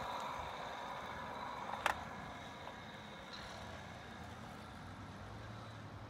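Razor E200 electric scooter's chain-drive motor whining as it rides past and away, fading, while running over-volted on a 7S lithium battery pack. A single sharp click about two seconds in.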